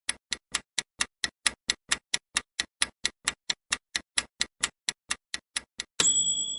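Countdown timer sound effect ticking fast and evenly, about four to five ticks a second, ending about six seconds in with a ringing chime as time runs out.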